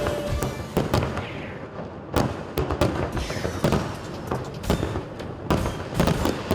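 Aerial fireworks bursting in rapid, irregular succession: many sharp bangs with crackle.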